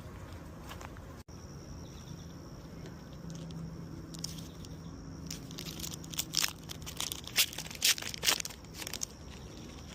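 Foil booster-pack wrapper crinkling and crackling as it is handled, in a run of crisp crackles that grows busier and loudest about three-quarters of the way through.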